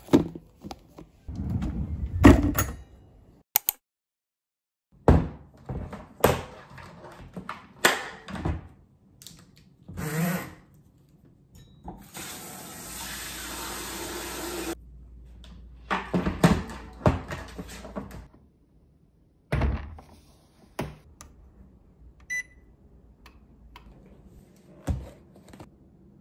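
A string of separate knocks and clunks from household things being handled and put away. About halfway through, a pull-out kitchen faucet sprays water into a humidifier's tank for about two and a half seconds, then the clunks go on.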